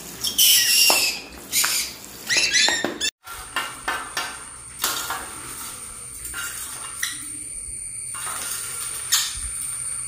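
Pet conures giving several loud, shrill calls with falling pitch in the first three seconds, then only quieter scattered clicks and rustles.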